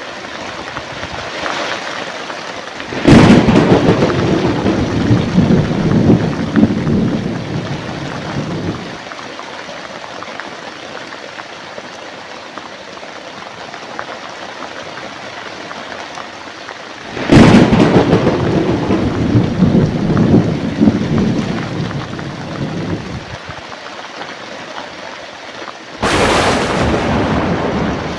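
Steady heavy rain with thunder: three thunderclaps, each starting suddenly with a sharp crack and rumbling on for several seconds, about three seconds in, around the middle, and just before the end.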